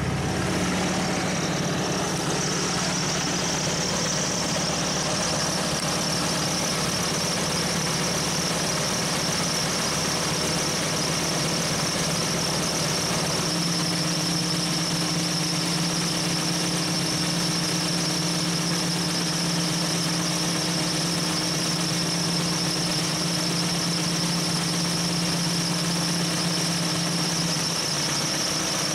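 Jeep YJ engine held at a fast idle of about 2,000 RPM on the hand throttle, running its belt-driven Sanden AC compressor converted for onboard air, with a steady high-pitched squeal over the engine's hum.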